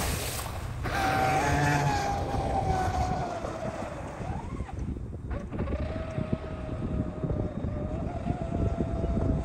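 Brushless electric motor of an RC racing catamaran (Blackjack 42-inch 8S) running at speed on the water: a steady high whine that sags a little in pitch, dips briefly about four seconds in, then holds steady as the boat runs farther off.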